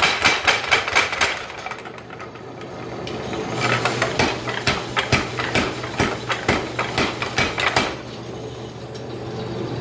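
Power hammer blows on a flatter tool: two runs of quick, even strikes, about four or five a second, the first stopping about a second in and the second from about three and a half seconds in to about eight. The hammer's motor hums steadily between the runs and after.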